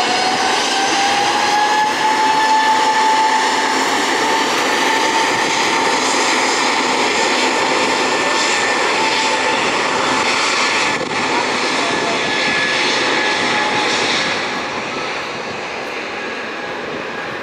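Airbus A320's twin jet engines running on the ground with a steady whine that rises slightly in pitch over the first couple of seconds, then holds, over a dense engine roar. The sound eases off near the end.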